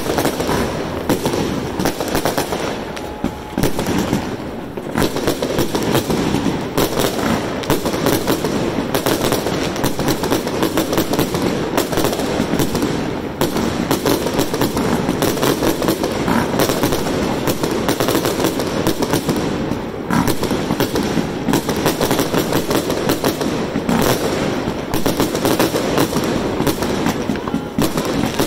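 Aerial fireworks bursting overhead in a dense, loud barrage of rapid bangs and crackling, almost without pause.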